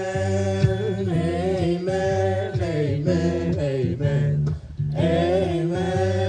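Live band music: strummed guitars over a steady bass line, with voices singing a melody. There is a brief break about four and a half seconds in.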